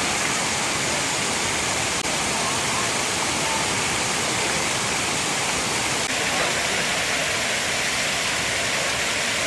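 Waterfall: a steady, even rush of falling water, with slight breaks about two and six seconds in.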